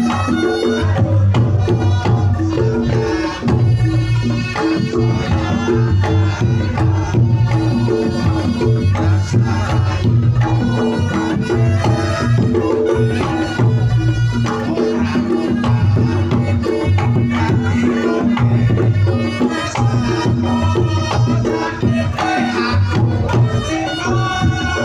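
Reog Ponorogo gamelan music, loud and continuous: drum-led percussion with sustained pitched instrument tones.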